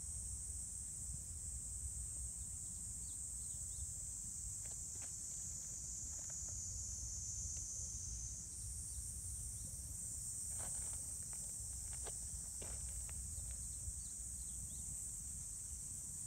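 Insects singing in a steady, high-pitched chorus, with a few faint clicks and a low rumble underneath.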